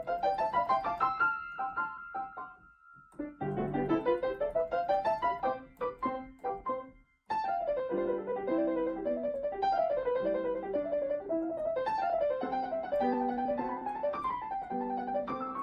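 Piano background music: two rising runs of notes, a brief pause, then from about seven seconds in a gentle melody over held chords.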